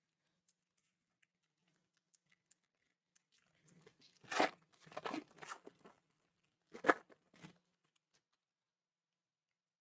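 Baseball card pack wrapper being torn open and crinkled by hand: a run of noisy tearing bursts from about four to six seconds in, then one more sharp tear near seven seconds, with faint ticks of handling around them.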